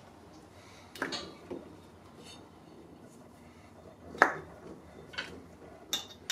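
A few separate metallic clinks and taps of hand tools on metal, the sharpest about four seconds in, as spark plugs are being pulled from a Harley-Davidson Milwaukee-Eight engine.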